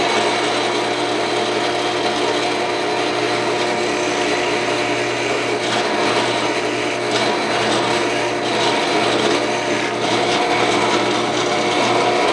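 Drill press running steadily as a 3/4-inch bit bores a hole into a wooden board, the motor hum under the noise of the bit cutting wood.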